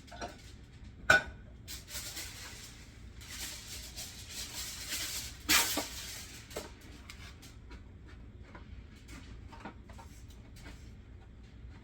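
Aluminum foil being pulled off the roll, torn and crinkled into place, in crackly bursts. A sharp knock comes about a second in, and a louder rustle just past the middle.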